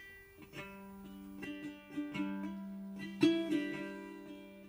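Soft background music: a slow run of plucked, ringing notes on a string instrument.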